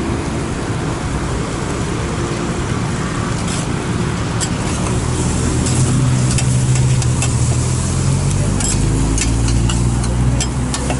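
Metal spatula scraping and clinking against a large flat metal pan as rice noodles are stir-fried, over a sizzle of frying. A motor vehicle's engine hum rises underneath from about halfway through.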